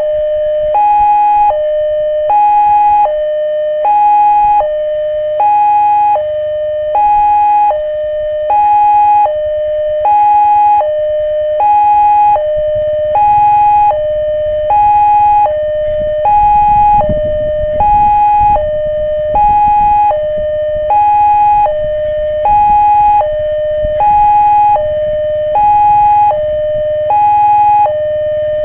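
Railway level-crossing warning alarm sounding continuously, a steady electronic two-note tone alternating high and low about once every 0.6 s, signalling that a train is approaching and the barrier is down.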